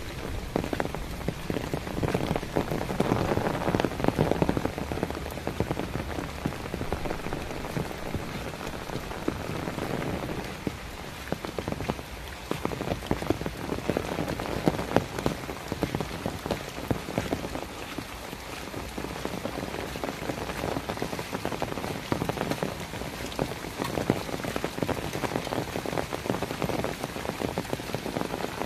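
Heavy rain falling: a dense, steady patter of drops that swells louder for a few seconds near the start and again about halfway through.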